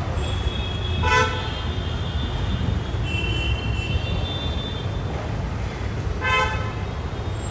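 Road traffic with a steady low rumble and vehicle horns honking: two short honks, one about a second in and one near the end, with fainter horn tones in between.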